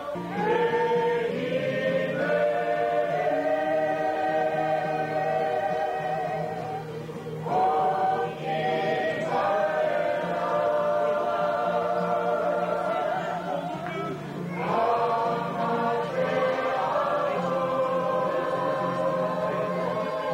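A group of men and women singing together, a slow song in long held notes, with new phrases starting about 7 and 15 seconds in.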